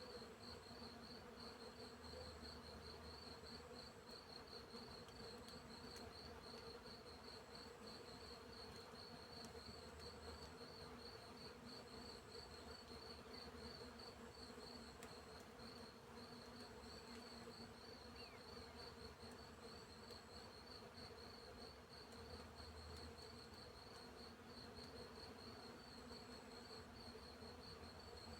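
Faint, steady chorus of crickets chirping in a quick even pulse, with a higher short trill recurring every second or two, over a steady low buzz of bees.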